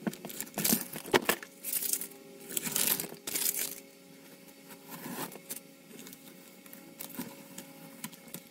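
Masking tape being peeled off a painted plastic model hull: irregular crackling and tearing as the tape comes away and crinkles, busiest in the first five seconds, then sparser.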